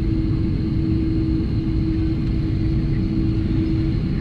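Steady low rumble with a constant hum inside an Airbus A330-300's cabin while the airliner sits parked at the gate.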